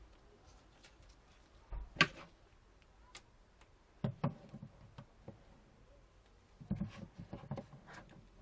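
Scattered light clicks and knocks from handling a phone and its charger cable on a work surface: one sharp click about two seconds in, a couple more around four seconds, and a short run of small knocks near the end.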